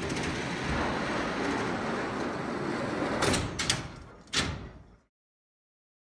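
FE Myers 8-wheel hay trolley rolling along its overhead steel barn track with a steady rumble. About three and four seconds in come a few sharp knocks as it jams: the trolley is getting hung up where a wheel hits a misaligned track joint. The sound then fades and cuts off suddenly.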